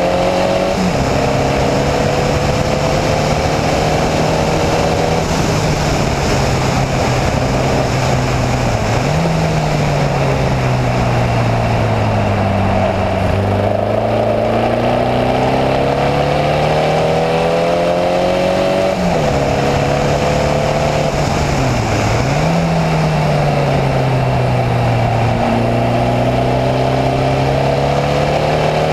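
Formula Vee race car's air-cooled Volkswagen flat-four engine running hard under the driver, heard onboard with steady wind rush. Its pitch climbs steadily on the straights, drops suddenly at several gear changes, and sinks slowly for a few seconds through the middle as the driver comes off the throttle for a corner before rising again.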